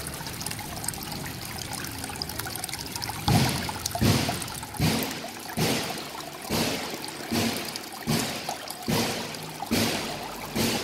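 Water trickling steadily over the rocks of a miniature rock-landscape fountain into its pond. From about a third of the way in, regular thumps come a little more than once a second and stand out above the water.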